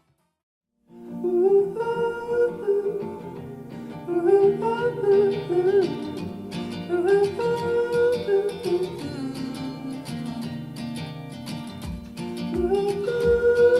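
Instrumental intro of a light pop song, with guitar and a sung melody, played through active bookshelf speakers and picked up by a recorder's microphone. It starts about a second in after a brief silence, and a low beat comes in near the end.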